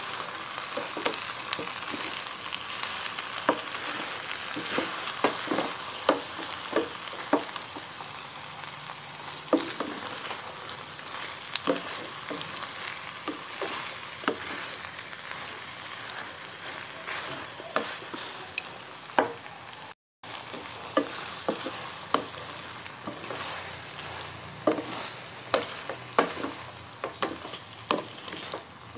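Wooden spatula stirring fried tofu cubes in cream in a non-stick pan over a steady sizzle, with irregular scrapes and knocks of the spatula against the pan. The sound cuts out for an instant about two-thirds of the way through.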